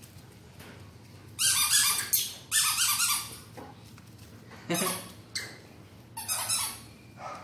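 Squeaky yellow rubber duck toy squeaking as a baby monkey presses and steps on it. There are four squeaks, the first two the longest and loudest.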